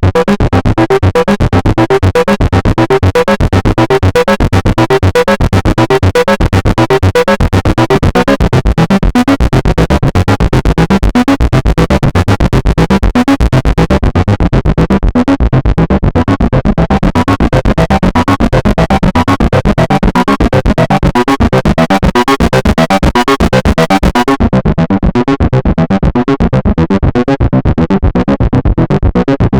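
Behringer Model D analog monosynth playing a fast, rhythmic sequence of short, pulsing notes whose pitch pattern shifts as it repeats. About 24 seconds in the sound loses its top end, as the filter closes down.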